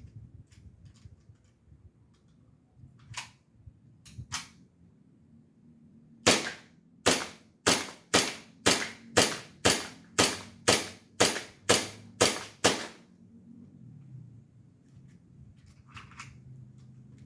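Airsoft Walther P38 replica pistol firing: a few softer shots, then a rapid string of about fourteen sharp cracks at roughly two a second that empties it of ammunition.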